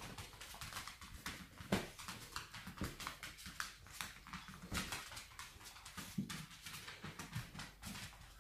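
Yorkshire terrier scrabbling about at the edge of a blanket-covered bed: an irregular run of scratching and rustling with sharp clicks.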